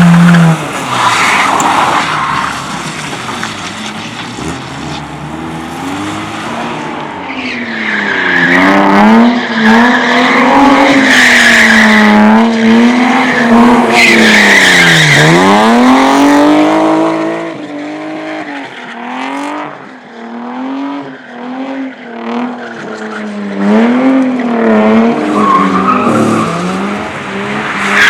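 A car drifting on a practice course: the engine revs rise and fall over and over as the throttle is worked, with tyre squeal that is loudest in the middle stretch, then the car eases off and picks up again near the end.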